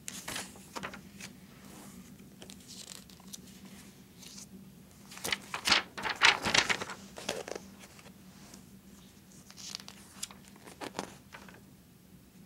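Pages of a thick glossy magazine being turned and smoothed flat by hand: paper rustling and crinkling in irregular bursts, the loudest about five to seven seconds in.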